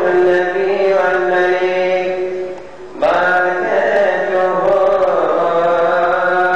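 Coptic Orthodox priest chanting the Gospel solo into a microphone: one male voice holding long, slowly gliding notes, breaking off briefly about two and a half seconds in and then going on.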